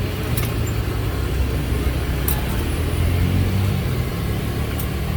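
A steady low engine rumble, like a motor vehicle idling or running close by, with a few faint clicks.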